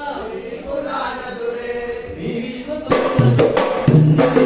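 Boduberu performance: voices sing a slow, chant-like opening line, then about three seconds in the hand-played boduberu barrel drums come in loud with quick strokes under the singing.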